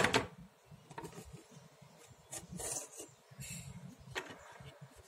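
Small plastic toys being handled and shuffled across a wooden toy-house floor: faint rubbing and scraping with a few light knocks.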